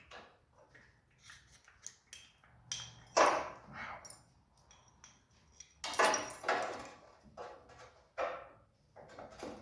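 Irregular metal knocks and clanks from hand work on a steel frame patch, with louder strikes about three and six seconds in.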